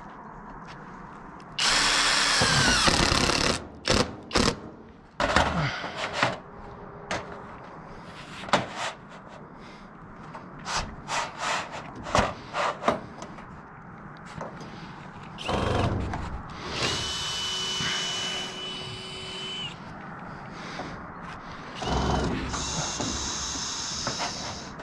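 Cordless drill-driver driving screws into steel roof flashing, in three runs: a loud one about two seconds in whose whine falls as the screw seats, another at about sixteen seconds holding a steady high whine, and a third at about twenty-two seconds. Sharp clicks and knocks come between the runs.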